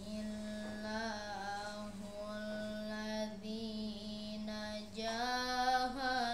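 A boy's voice reciting the Quran in a slow, melodic chanting style, holding long drawn-out notes with ornamented turns. About five seconds in, the voice rises to a louder, higher phrase.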